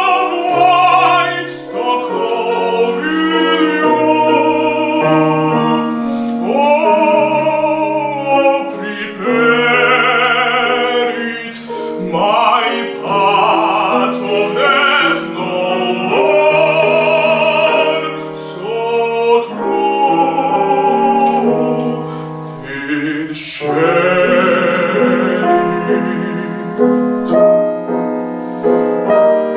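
A tenor sings a slow classical art song in operatic style with wide vibrato, accompanied by a grand piano's sustained chords.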